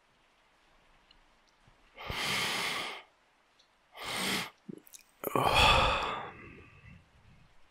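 A man breathing heavily between lines: a long breath about two seconds in, a shorter one a second later, then a longer sigh, the loudest, that trails off.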